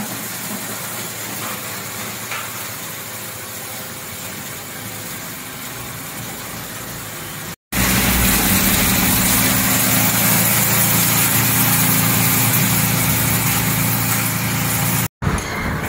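Rhong RG-46100E plastic bottle granulator with a 37 kW motor running steadily. The sound cuts out suddenly about seven and a half seconds in and returns louder with a stronger low hum, then cuts out again just before the end.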